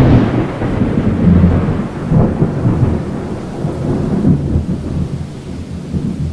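Rolling thunder over rain: a deep rumble that starts at its loudest, swells again several times, and slowly eases off.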